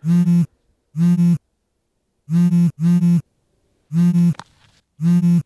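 Mobile phone buzzing with an incoming call: half-second buzzes at one steady pitch, repeating in a pattern of two buzzes then one, with silent gaps between.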